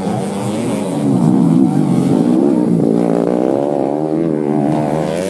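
Several underbone (bebek) racing motorcycles revving hard on a dirt grasstrack. Their engine notes overlap and rise and fall as the riders work the throttle, loudest about a second in.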